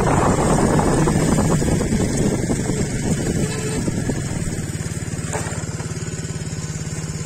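Motorcycle engine running while riding, then easing off and settling into a steady, evenly pulsing idle about four seconds in.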